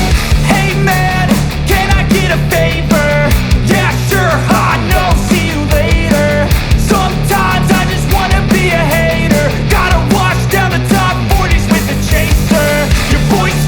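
Background music: a rock song with a steady beat and a sung melody.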